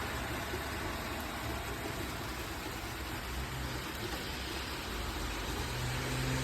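Steady rain falling as an even hiss, with a low hum joining near the end.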